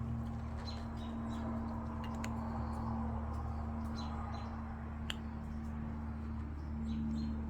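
Steady low electrical-sounding hum with a few faint, short clicks and chirps scattered through it.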